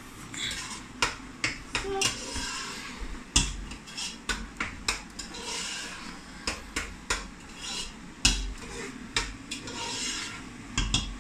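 A spoon stirring thick egusi soup in a cooking pot, scraping and knocking against the pot's sides and bottom in irregular clicks. There are a couple of dull thumps, one a little over three seconds in and another about eight seconds in.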